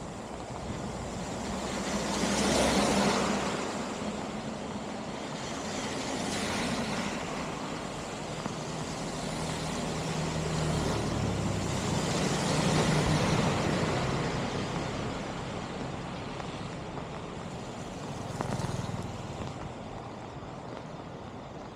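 Road vehicles passing one after another, each a swell of engine and tyre noise that rises and fades, the loudest about three seconds in and again near the middle.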